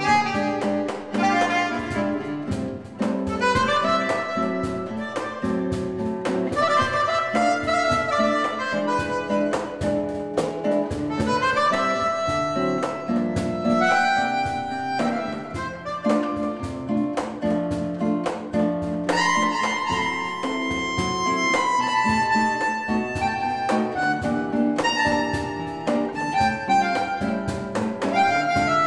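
Live jazz trio: a Vibrandoneon, a breath-blown free-reed instrument, playing flowing melodic runs over acoustic guitar accompaniment and light percussion.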